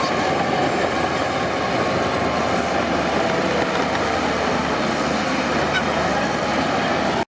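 Crawler bulldozer's diesel engine running steadily and loudly.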